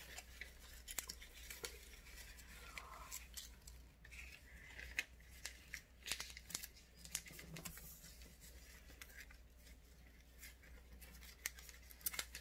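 A sheet of origami paper being folded and creased by hand: faint, scattered crisp crackles and rustles of the paper.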